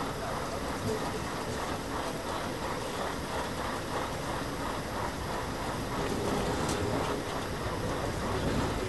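Steady running noise of a train, a continuous rumble with faint regular clatter.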